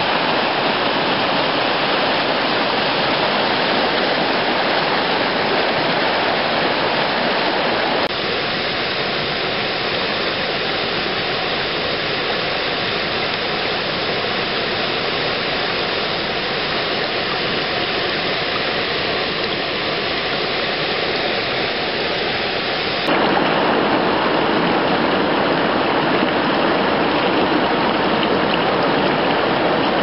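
Rushing mountain stream tumbling over rocks: a steady hiss of fast water. Its tone changes abruptly twice, about eight seconds in and again about two-thirds of the way through.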